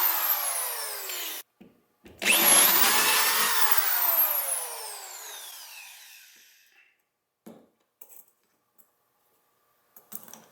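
Power drill running and winding down with a falling whine, which stops abruptly about a second and a half in; it starts again about two seconds in, then slowly spins down with a falling whine over the next few seconds. A few faint clicks follow near the end.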